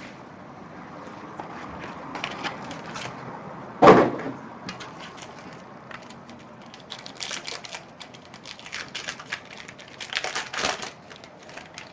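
A trading-card box and its plastic-wrapped pack being handled and opened: a single loud, sharp sound about four seconds in, then bursts of crinkling plastic wrapper in the second half.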